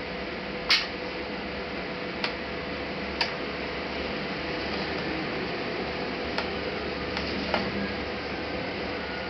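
Scattered small clicks and taps from handling a laptop's plastic case parts and tools during disassembly, the loudest a sharp click about a second in, over a steady background hum.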